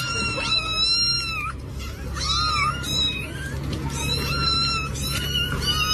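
A cat meowing over and over: a run of high, drawn-out meows, each about half a second to a second long, one after another.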